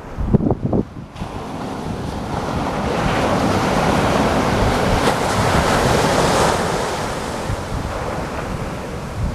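An aircraft passing: a rushing noise that swells over a few seconds, peaks about halfway through and fades again. Wind buffets the microphone with gusty thumps in the first second.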